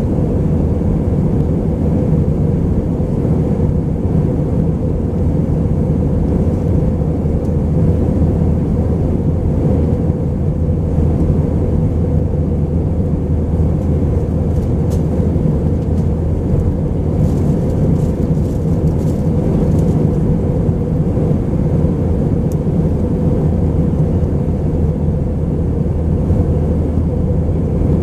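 Steady cabin noise inside an Airbus A319-131 airliner: a constant low rumble from its IAE V2500 jet engines and the airflow, with a few faint ticks in the cabin.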